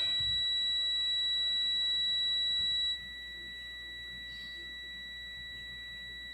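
A steady, high-pitched electronic tone from the bench electronics. The louder, higher tone cuts off suddenly about three seconds in, leaving a fainter, lower tone running on.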